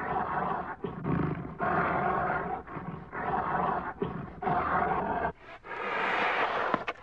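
Brown bear cubs humming while nursing from their mother: a loud, rumbling buzz that comes in pulses of half a second to a second with short breaks between, about eight in a row. The hum is the sound cubs make while suckling.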